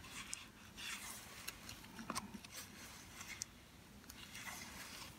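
Faint rustling and scraping of cardstock as a bone folder and fingers press a glued seam from the inside, with a few scattered soft clicks.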